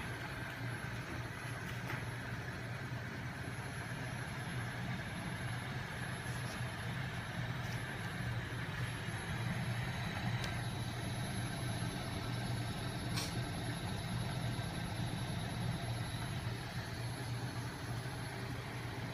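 Homemade magnet-coupled flywheel machine running steadily, its small 12 V electric motor, crankshaft and heavy flywheel spinning at speed with a steady low drone and a few faint ticks.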